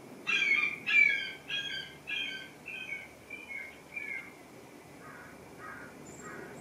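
An animal calling: a run of about eight short, clear calls about half a second apart, loudest at the start and fading away, then three fainter calls near the end. A faint steady high-pitched tone runs underneath.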